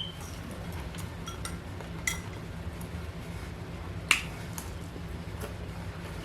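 Eating sounds from a bite of lamb chop and rice: a few sparse sharp clicks and smacks, the loudest about two and four seconds in, over a steady low hum.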